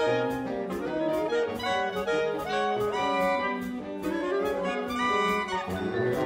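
Wind ensemble playing in concert, brass and woodwinds sounding held chords that shift from note to note, with a lighter moving line above.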